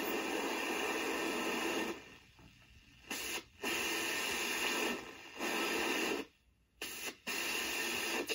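Hiss and static from a homebrew regenerative shortwave receiver as its tuning dial is turned through the band near 9 MHz. The noise cuts out to near silence several times, the longest gap a little past two-thirds of the way through.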